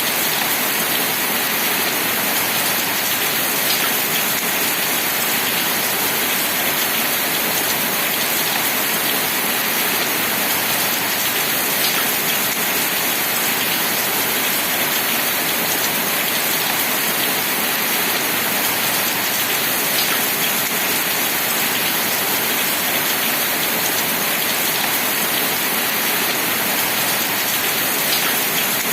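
Steady rain, an even hiss with no let-up, with a few sharper single drop ticks now and then.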